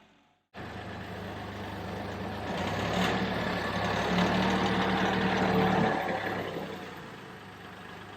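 An engine running with a steady low hum. It grows louder from about two seconds in and fades after about six seconds, like a vehicle going past.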